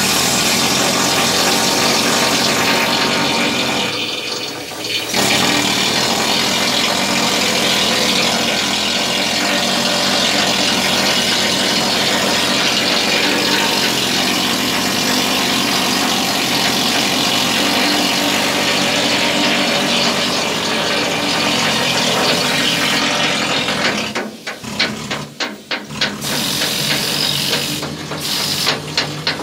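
Hand-held chipping and grinding tools working on a ship's steel hatch coaming, stripping rust and paint, with a loud continuous noise. It dips briefly about four seconds in and stutters on and off a few seconds before the end as the tools stop and restart.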